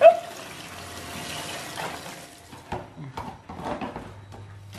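Tap water running into a plastic basin of cabbage leaves in a steel sink while hands rub the leaves clean. About two and a half seconds in the water stops, and a few sharp knife taps on a cutting board follow.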